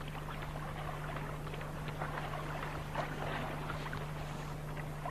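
Water lapping with small, irregular splashes as a flamingo wades and sweeps its head through the shallow lake water, over a steady low hum.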